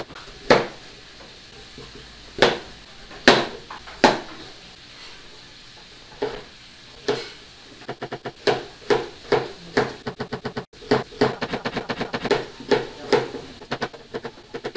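Knife chopping through raw potato onto a cutting board: a few separate knocks in the first seconds, then a steady run of chops, two or three a second, from about halfway.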